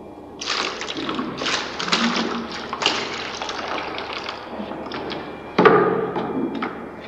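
Thick dark red liquid glugging out of a plastic jug and splashing into a plastic bucket in irregular gushes, with a louder gush about five and a half seconds in.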